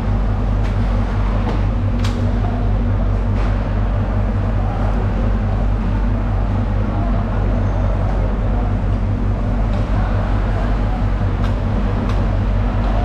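A steady low machine hum, with a few sharp knocks about two seconds in and again near the end.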